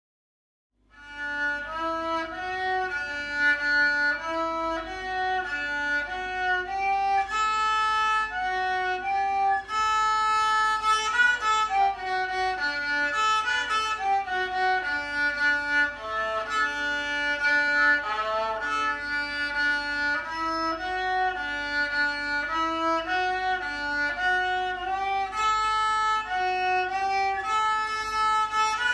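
A child playing a simple tune on a violin, bowing one note after another; it begins about a second in.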